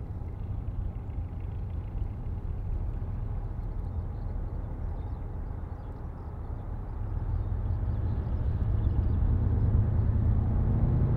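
Jet airliner approaching to land: a low engine rumble that grows steadily louder from about seven seconds in.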